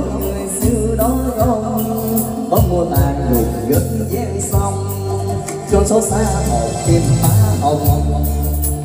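A man singing through a handheld microphone and PA over a karaoke backing track with a steady bass and beat.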